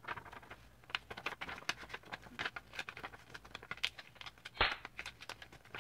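Sheet of paper being handled and folded into a paper airplane: quick irregular crinkles and creasing taps, with one louder knock about three-quarters of the way through.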